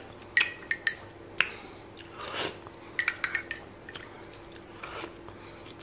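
Metal teaspoon clinking against a ceramic mug: a scattering of short, bright ringing taps, several in the first second and a cluster about three seconds in.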